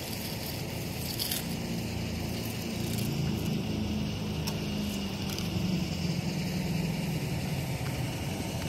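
A car engine running close by, a steady low hum that grows a little louder after about three seconds. A couple of light clicks about a second in.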